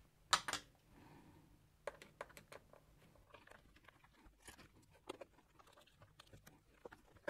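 Faint scattered clicks and ticks of a screwdriver driving a screw into the plastic water inlet valve assembly of a washing machine, with one sharper click about a third of a second in.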